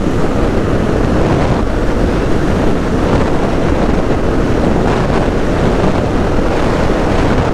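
Steady wind rush over the microphone of a KTM 690 Enduro R motorcycle riding at highway speed, with the bike's engine and road noise underneath.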